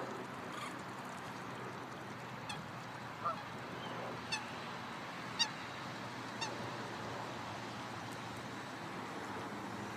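A bird calling five times, short calls about a second apart, over a steady background hum.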